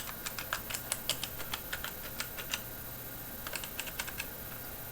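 Keys being pressed on a mechanical keyboard fitted with a mix of Cherry MX switches (linear, tactile and clicky), clicking and clacking in quick irregular presses. The presses pause about two and a half seconds in, come again in a short burst, then thin out near the end.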